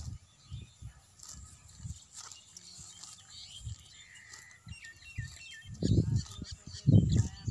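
Quiet pasture ambience: a small bird gives a quick run of repeated chirps a little past the middle. Near the end come two loud low rumbling bursts, the loudest sounds here.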